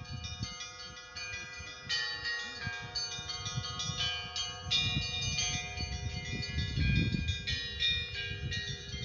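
Church bells rung by hand in a continuous pattern, with fresh strikes every second or so over the long hum of the larger bells. A low rumble runs underneath.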